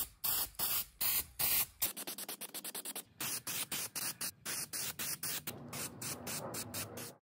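Aerosol can of spray paint hissing in repeated bursts: a few longer sprays at first, then many short, quick spurts.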